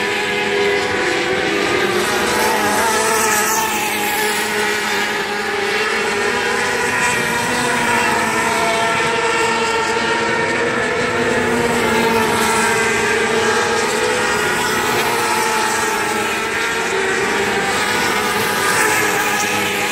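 A field of 600cc micro sprint cars racing on a dirt oval, several high-revving engines running together in a continuous, overlapping drone whose pitch wavers slightly as the cars go around.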